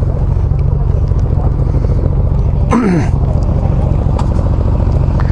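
Suzuki GSX-S1000's inline-four engine with a Firetong Willy Made exhaust, idling steadily. About three seconds in, a brief louder sound slides down in pitch.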